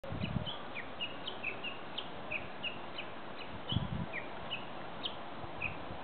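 A small songbird twittering in a thicket: a quick run of short, high chirps, about three a second, some sliding down in pitch. Two low thumps break in, about half a second and four seconds in.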